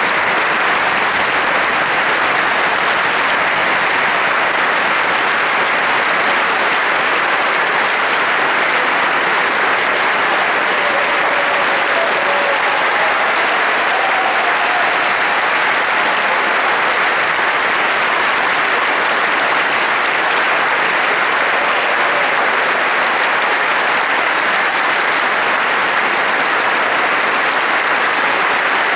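Large concert-hall audience applauding: steady, dense clapping from many hands.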